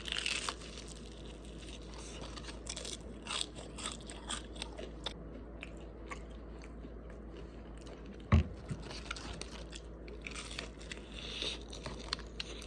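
Close-up eating sounds: a person biting and chewing crispy spicy fried chicken, with scattered crunches and crackles. A single dull thump comes about eight seconds in.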